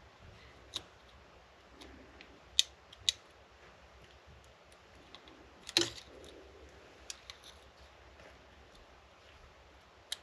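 Scattered sharp clicks and light taps of small parts and hand tools being handled on a workbench while a model locomotive is put back together. The loudest click comes a little before six seconds in.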